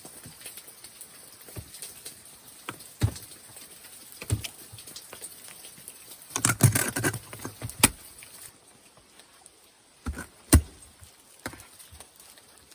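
Irregular sharp knocks and taps, with a dense cluster about halfway through: ice tools and crampons striking ice. They sound over a steady hiss that cuts off abruptly about eight seconds in.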